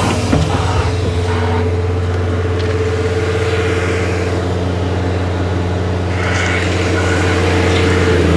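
Caterpillar 320 excavator's diesel engine running steadily: a low drone with a steady higher whine over it, while the boom lowers the bucket.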